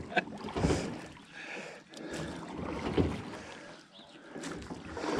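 A small rowboat being rowed: oars dipping and pulling through the water, with a few soft knocks along the way.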